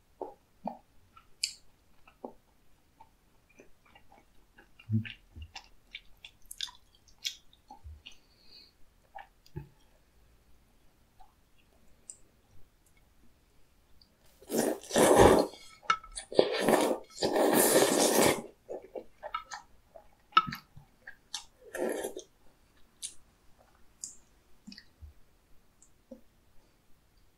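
A person eating soupy tteokbokki: quiet chewing with small clicks, then a loud slurping of glass noodles from the spicy broth lasting about four seconds in the middle, followed by more chewing.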